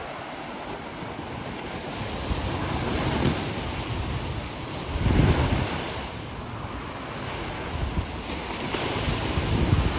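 Sea waves breaking and washing up a concrete seawall slope, swelling and falling back in surges, loudest about five seconds in. Wind buffets the microphone.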